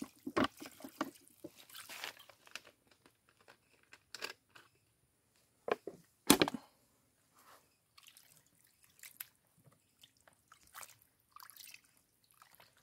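Water poured from a plastic bottle splashing into a plastic bowl of cut fish pieces, then sparse wet splashes as hands wash the fish in the water. There is one loud sharp knock about six seconds in.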